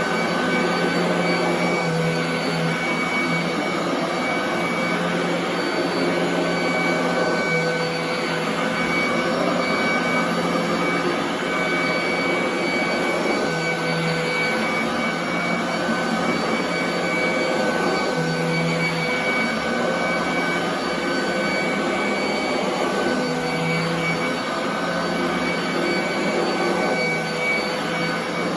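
Royal commercial vacuum cleaner running steadily while deep-vacuuming carpet: a continuous motor whine over the rush of airflow.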